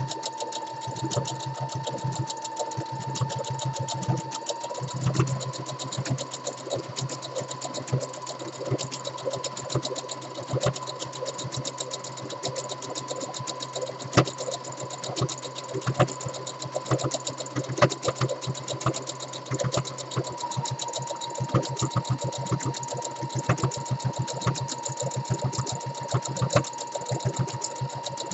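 Brother Project Runway CE1100 computerized sewing machine running steadily, sewing a wide decorative stitch: a motor whine under rapid, even needle clicks. The whine steps up slightly in pitch about four seconds in and drops back about twenty seconds in.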